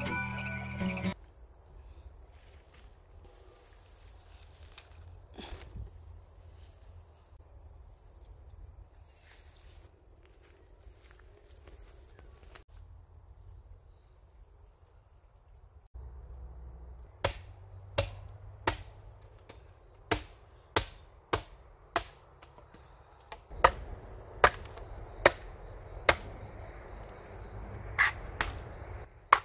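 Insects chirring steadily in one high band, typical of crickets at night. From about two thirds of the way in, a run of sharp knocks comes at a steady pace of about one every 0.7 seconds, like hammering.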